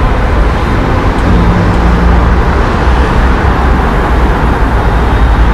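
Heavy road traffic noise: a steady, dense wash of passing cars and trucks with a strong low rumble.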